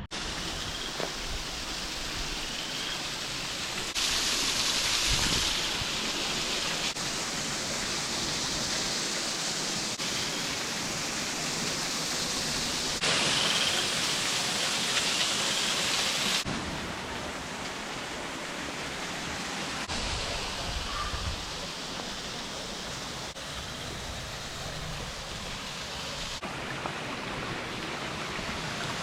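Waterfall, a steady rush of falling water that grows louder for a few stretches and then drops back.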